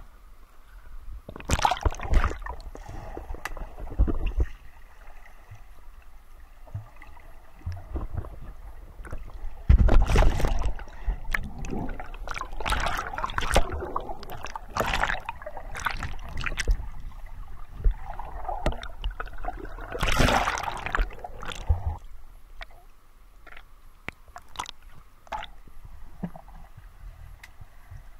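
Water sloshing, splashing and bubbling close around the microphone as it dips under the surface with snorkelers, in irregular bursts that are loudest about ten seconds in and again about twenty seconds in.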